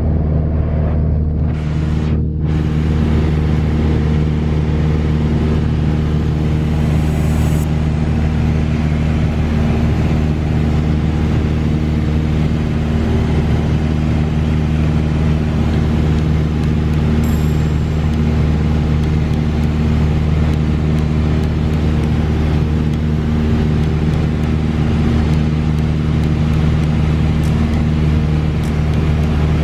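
A small single-engine piston airplane's engine and propeller droning steadily in flight, heard loud from inside the cabin. The pitch stays even throughout.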